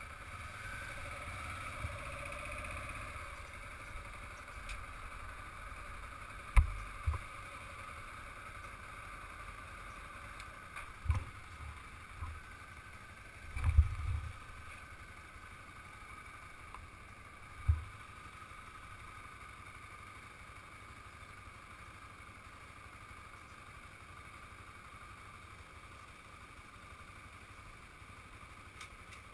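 Small motorcycle engine idling faintly at a standstill, with a few dull low thumps on the helmet-camera microphone.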